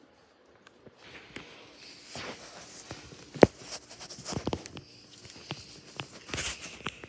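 Close rustling, scuffing and light clicks as a bull terrier in a shirt moves up against the microphone, starting about a second in, with one sharp click about three and a half seconds in.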